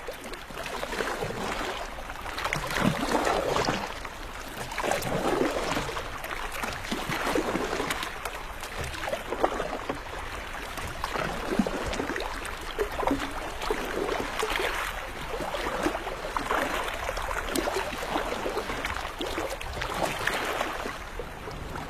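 Water splashing and sloshing around a wooden rowing boat as it is rowed, surging about every two seconds.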